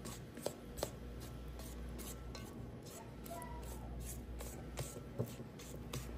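Silicone spatula scraping and folding thick cake batter around a stainless steel mixing bowl, soft and faint, with light clicks throughout.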